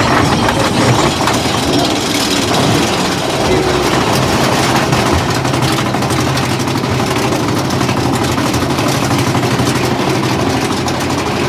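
Mine-train roller coaster hauled up its chain lift hill: a steady low hum from the lift drive, over a fast, dense clatter of chain and track under the car.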